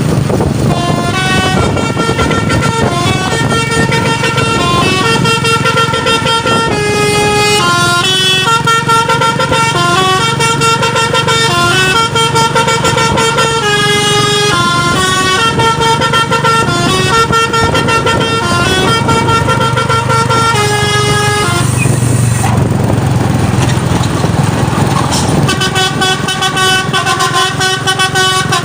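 A truck's telolet horn, a set of musical air horns, playing a quick stepped melody over the truck's running engine. The tune breaks off for about three seconds near the end, leaving only the engine, then starts again.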